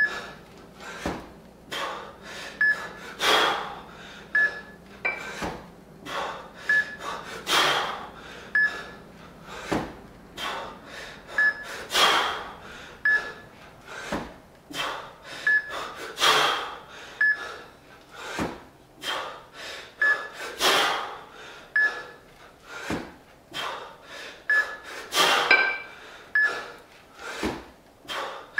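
A man breathing hard and rhythmically through a two-arm jerk set with two 20 kg kettlebells, with a loud forceful exhale about every four seconds, once per rep, and quicker breaths between. Short high electronic beeps from the wrist-worn Fixometer sound repeatedly through the set, marking the lockouts.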